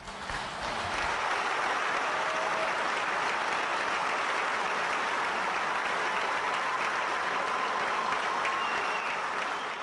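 A large audience applauding steadily, swelling within the first second after a speech ends and then holding at an even level.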